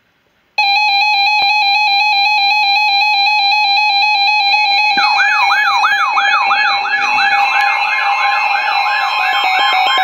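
Weather alert radios sounding their alarms for an incoming Special Marine Warning. A harsh, rapidly pulsing electronic tone starts abruptly about half a second in, and about five seconds in a second alarm joins with a repeating sweeping whoop, about three sweeps a second.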